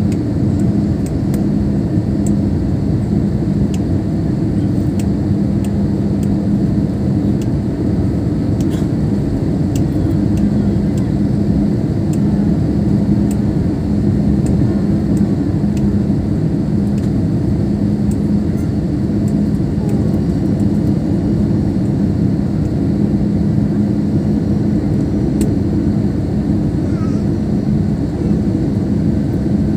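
Airbus A320 airliner in flight, a steady low rumble of engine and airflow noise with a constant hum, as heard inside the cabin.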